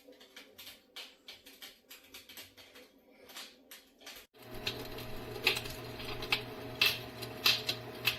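Electronic fireplace crackler sound box playing recorded fire crackling through its small speaker: a quick, irregular run of snaps and pops. About halfway through the sound abruptly gets louder, with a steady hum and hiss under sharper pops.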